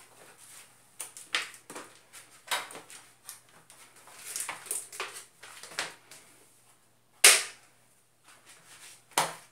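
Irregular clicks, knocks and short rustles of objects being handled, with one sharp clack about seven seconds in and another near the end.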